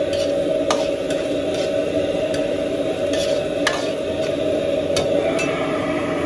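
Stir-frying in a wok: a metal spatula knocks against the pan about seven times at uneven intervals while food sizzles over a steady kitchen hum.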